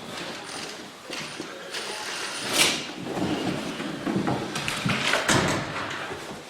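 A door being opened, with rustling and handling noises and one sharp swish about two and a half seconds in.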